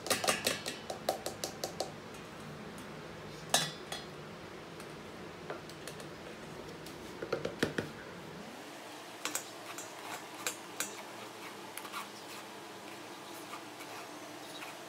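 A measuring cup and a spoon clinking, knocking and scraping against a metal mesh strainer over a steel bowl while flour is sifted. A quick run of ringing clinks comes at the start, then a sharp knock about three and a half seconds in and another cluster of clinks near the middle, followed by lighter scraping and tapping of the spoon in the strainer.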